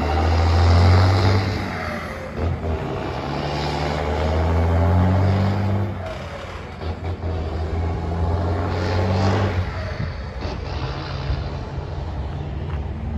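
Iveco Tector truck's diesel engine accelerating through the gears, its note climbing and then dropping back at each shift, several times over.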